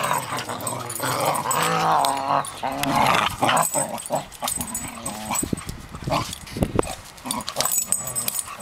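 Two cocker spaniels bickering, growling at each other in the first few seconds, then short sharp sounds from the tussle through the second half.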